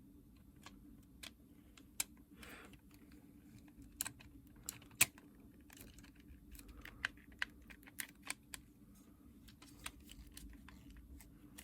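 Faint, irregular small plastic clicks and taps as the Nintendo DS Lite's shell halves, buttons and power switch are handled and pressed into place, the sharpest click about five seconds in.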